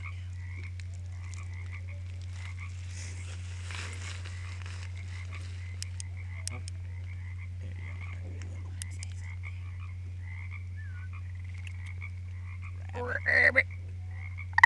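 Frog croaking: a faint, steady run of short repeated chirps, then a louder pulsed croak near the end, over a steady low hum.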